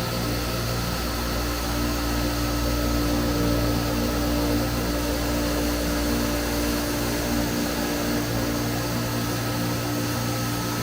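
Horizontal foam-cutting machine running steadily: a constant motor hum with a thin steady whine over a hiss, the low hum dipping briefly about two-thirds of the way through.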